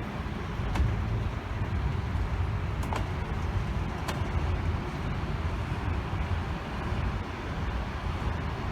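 Train at a station platform: a steady low rumble with a few sharp clicks.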